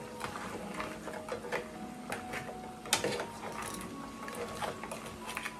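Crab pieces being stirred and tossed in a shallow pan with a metal ladle and a wooden spatula, the shells clicking and knocking against the pan and each other at irregular intervals, the sharpest knock about three seconds in.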